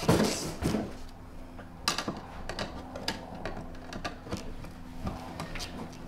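Small hand saw blade working at the edge of a metal wall outlet box: irregular scraping strokes and sharp clicks of metal on metal, loudest in the first second, as it cuts the nails holding the box to the stud.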